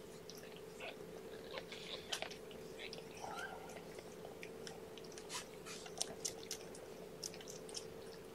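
Faint wet clicking and smacking of a litter of young kittens suckling at the mother cat and the mother cat licking them, over a steady low hum.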